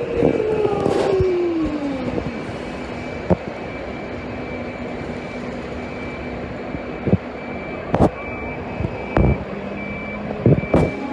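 Electric suburban train's traction motors whining down in pitch as the train slows to a stop, ending about two seconds in. Then a steady low hum from the standing train, with a faint high beep repeating and a few sharp knocks.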